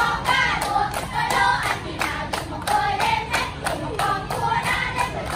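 A group of young girls singing a song together, clapping their hands in a steady beat of about three claps a second.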